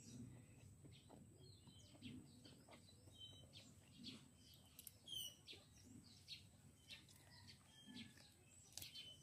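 Faint birds chirping in short, scattered calls, with a quick falling run of chirps about halfway through, over near silence.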